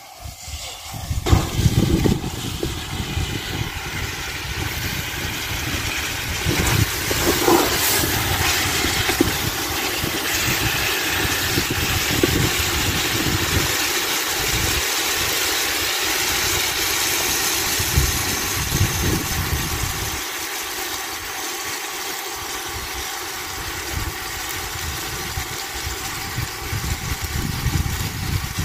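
Zucchini, tomato and onion sizzling in oil in an aluminium pot over a wood fire: a steady hiss, under an uneven low rumble that comes and goes.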